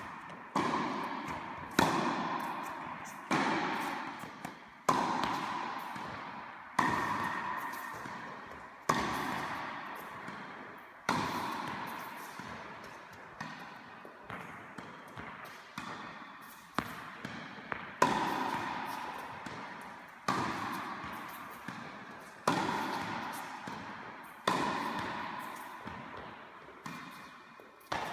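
Tennis balls struck by rackets in a rally, a sharp hit about every two seconds with fainter ball bounces in between. Each hit echoes for a second or more around the enclosed indoor court hall.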